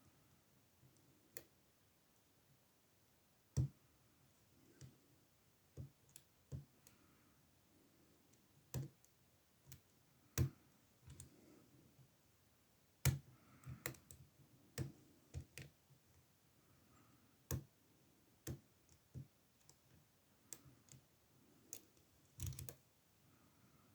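Small, sharp, irregular clicks and taps of lock picks working the pins of an older Ruko oval cylinder in a brass and steel ASSA padlock, with a quick cluster of clicks near the end.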